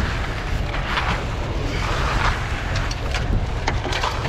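Wind buffeting the microphone with a steady low rumble, over the rasp of a hand screed being dragged across wet concrete, with scraping strokes about a second in and again around two seconds in, then a few short knocks near the end.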